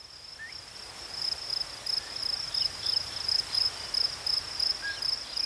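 Field ambience with an insect chirping steadily in a high, even pulse of about three chirps a second, growing louder about a second in. A few short rising whistles are heard near the start and near the end.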